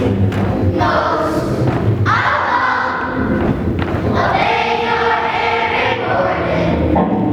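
A class of young schoolchildren singing together as a choir, in phrases with short breaks between them, over a low, thudding accompaniment.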